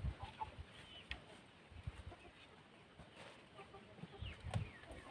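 Chickens clucking faintly, with a few short high chirps and some soft low knocks.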